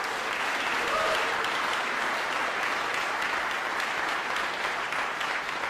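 An audience applauding steadily, with a brief shout from the crowd about a second in.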